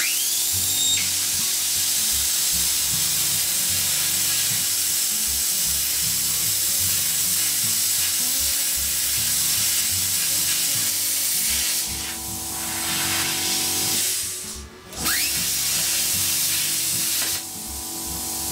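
Plasma cutter with a built-in air compressor cutting 5 mm steel plate: the arc's loud, steady hiss runs over the hum of the internal compressor, which is working at its maximum of 2.5 bar. The hiss cuts out briefly about fifteen seconds in, then comes back more quietly.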